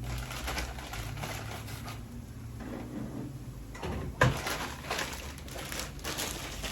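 Kitchen handling sounds: scattered clicks and rustling, with one sharp clunk about four seconds in.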